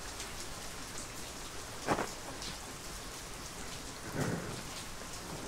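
Heavy, steady rain hissing down at about an inch an hour. A brief knock comes about two seconds in, and a softer, lower sound follows around four seconds in.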